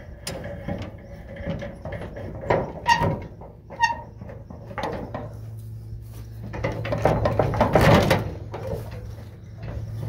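Grain binder's knotter mechanism being tripped and worked by hand: a few metallic clicks and clanks, one ringing, about three to four seconds in, then a longer rattling stretch around seven to eight seconds. On this try it fails to cut the twine.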